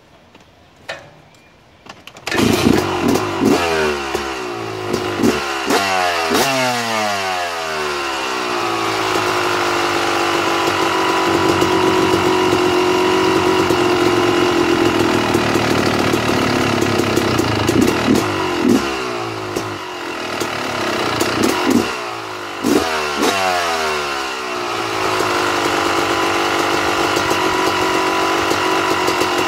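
2009 Yamaha YZ250 two-stroke single-cylinder dirt bike engine starting about two seconds in. Its revs are blipped up and fall back several times before it settles to idle. A second run of blips comes about two-thirds of the way through, then it idles again while the carburetor's air screw is turned with a screwdriver.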